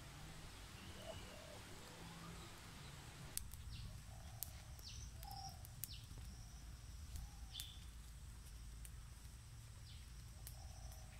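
Small wood fire of dry sticks and palm frond crackling, with sharp snaps from about three seconds in, while birds call with short repeated chirps over a low rumble.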